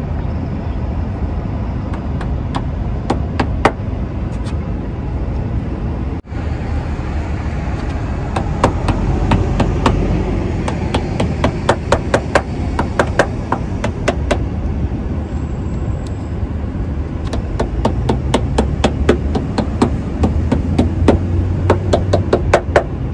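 Rubber edge-guard trim being pressed and tapped onto a car door's edge: quick runs of sharp taps, several a second, starting about eight seconds in, over a steady low background rumble.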